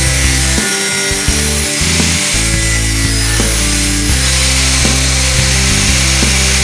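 Angle grinder running steadily against the edge of a sheet-metal repair patch on a car wing, a continuous high grinding hiss, over background music with a bass line.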